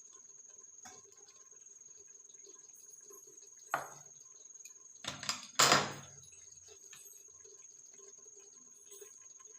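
A spoon knocking against a cooking pot while part-cooked rice is layered in: one sharp knock about four seconds in, then a louder clatter of knocks a second or so later.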